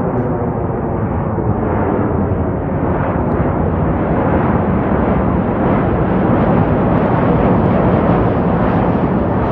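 Wind buffeting the microphone: a loud, steady rushing noise, heaviest in the low end.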